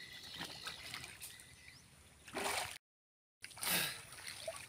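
Pond water sloshing and splashing quietly as a cast net is worked through it, with two brief splashes, the second following a short cut to silence.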